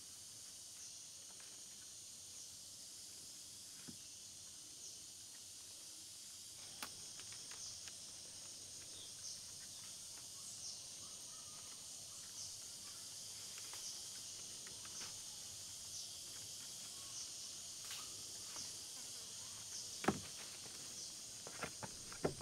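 Steady high-pitched chorus of forest insects, with scattered light clicks and knocks of wooden poles being handled and lashed together; the loudest knock comes about twenty seconds in.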